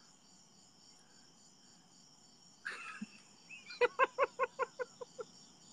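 Crickets chirping steadily in the background. About four seconds in, a quick run of about eight high-pitched 'ha' pulses of laughter stands out over them.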